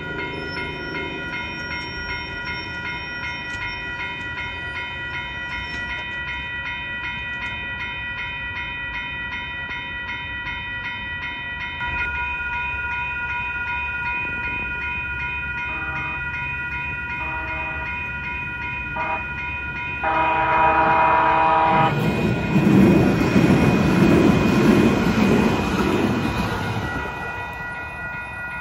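Railroad crossing warning bells ring rapidly and steadily throughout. About twenty seconds in, an LA Metro light rail train sounds its horn, a chord lasting about two seconds, after a few shorter toots. The train then passes with a loud rumble of wheels on rail for about five seconds, fading near the end.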